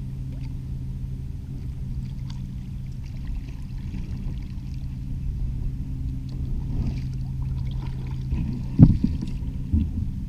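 Kayak paddling in shallow water: paddle strokes splashing over a steady low hum, with a sharp knock just before nine seconds in as the kayak comes into the shore shallows.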